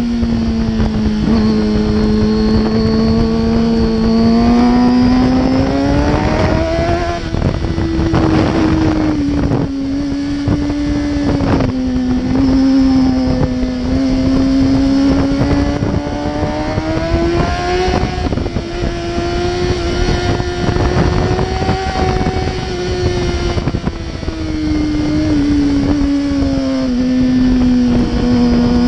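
Kawasaki sport bike's engine running under the rider, heard from a camera on the bike. Its pitch climbs and falls repeatedly as the throttle is opened and eased through the bends.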